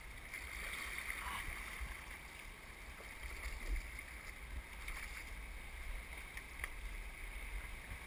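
Steady rush of river water around a canoe moving slowly through rapids, with a low rumble underneath and a few faint knocks.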